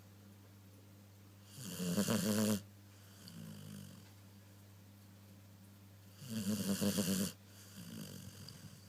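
Dog snoring: two loud snores, each about a second long, come roughly four to five seconds apart, and each is followed by a softer breath out.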